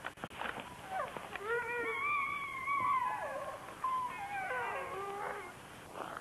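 Sled dog howling: two long, wavering howls, the second sliding down in pitch near its end.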